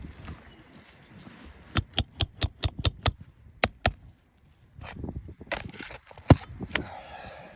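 A quick run of about nine sharp metal taps, then one louder knock a few seconds later, from a roof snake (shingle nail-ripper) being worked under asphalt shingles to pull the roofing nails.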